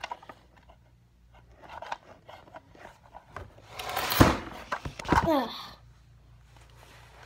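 Handling noise of a plastic toy convertible being moved and set down on a tile floor: a loud rustling shuffle ending in a knock about four seconds in, and a second knock a second later.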